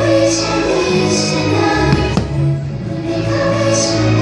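Fireworks show soundtrack: music with a choir singing held notes, and a sharp firework bang about two seconds in.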